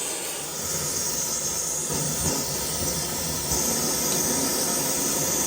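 Gas blowtorch burning with a steady hiss as its flame is held on a seized exhaust stud to heat it loose.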